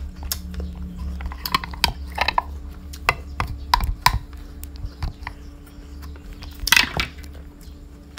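Chewing a bite of crisp strawberry apple close to the microphone: scattered crunchy clicks, with a louder crunch about seven seconds in.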